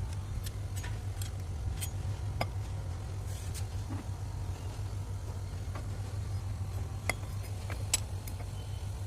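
Steady low electric hum of a running motor, with scattered light clicks and taps.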